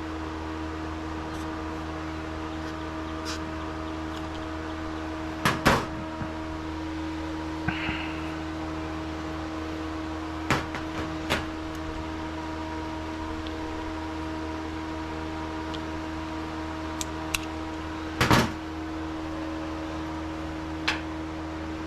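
Steady mechanical hum made of several fixed tones, with a scattering of sharp clicks and knocks from parts and tools being handled. The loudest knocks come about a quarter of the way in and again near the end.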